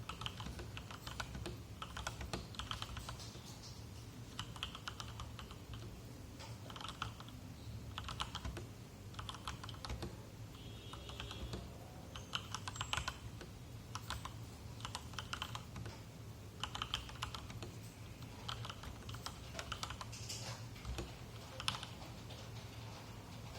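Typing on a 96-key mechanical keyboard with stock Gateron Yellow linear switches on an aluminium plate, in a bottom-mount Lego-brick case: quick runs of keystrokes broken by short pauses.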